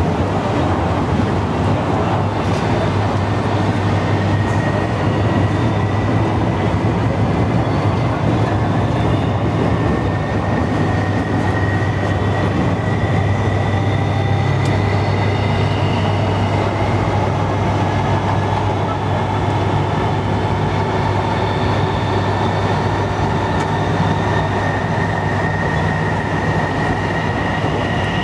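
MTR East Rail Line MLR electric train heard from inside a carriage while running, with a loud, steady rumble. A whine in the drive rises slowly in pitch as the train picks up speed.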